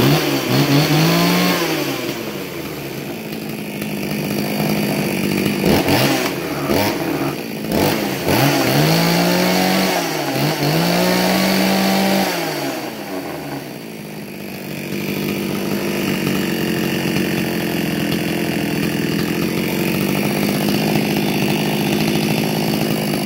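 Blue Max Super Steel 45cc two-stroke chainsaw running just after a start on locked fast-idle throttle, with its chain off the bar. It is revved up and back down several times in the first twelve seconds, then runs steadily at idle.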